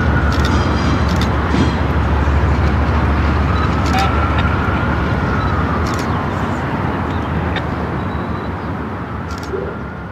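Diesel locomotive engine running as the locomotive moves slowly away, its low rumble fading toward the end, with a few metallic clanks.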